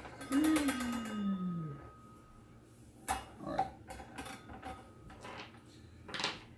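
Metal clinks on a cordless circular saw and its blade as it is handled, with a short metallic ringing and a drawn-out tone that falls in pitch about half a second in. Scattered single clicks of handling follow.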